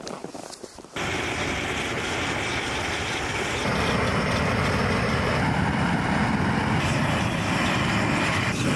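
Gas torch on a hose from an LPG cylinder, lit about a second in and burning with a steady rushing noise that grows a little louder past the middle as the flame is played over the hair of a cow hide.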